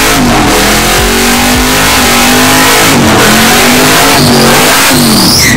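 Car doing a burnout: the engine is held at high revs, dipping and climbing back several times, over a loud hiss of spinning rear tyres.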